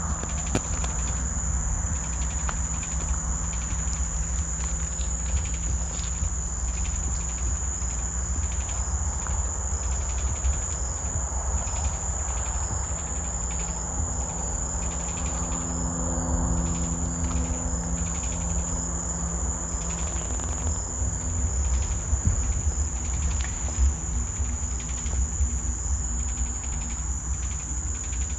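Steady high-pitched insect chorus, cricket-like, over a low rumble. Low droning tones underneath grow stronger in the middle and fade again.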